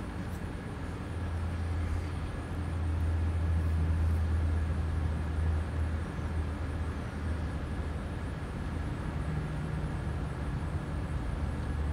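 Steady low rumble of an engine running at idle, swelling a little a couple of seconds in and easing off again after about six seconds.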